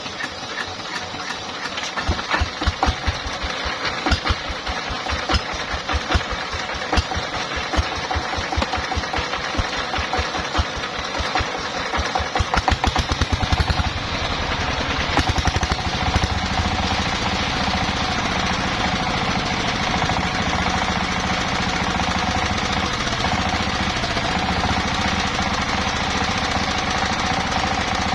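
Engine of a circular sawmill running slowly with evenly spaced low knocks, about four a second, then speeding up about 14 seconds in to a steady fast run with a held hum.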